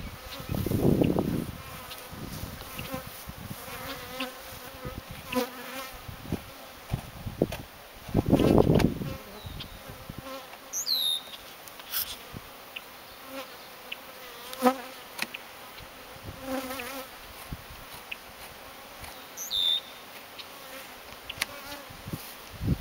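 Honeybees buzzing around an opened hive as a nuc is installed, individual bees flying close past the microphone so the buzz swells and fades. A couple of louder low rumbles stand out, about a second in and again around eight seconds.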